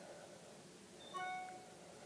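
A short electronic alert chime about a second in: several steady, bell-like tones sounding together for about half a second, over faint room hiss.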